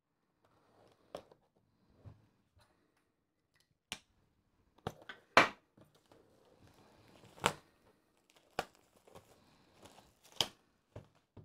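Cardboard kit box being cut open with a hobby knife and handled: a string of sharp snaps and scrapes of cardboard, the loudest about five and a half seconds in, with plastic wrapping crinkling near the end.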